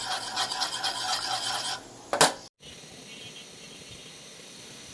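A metal spoon scraping and stirring in a metal pot with a rhythmic rasp, ending in one sharp knock about two seconds in; after that only a steady faint hiss.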